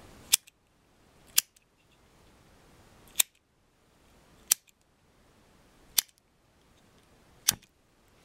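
Lighter struck six times at uneven intervals, a sharp click every second or two, while lighting an alcohol stove.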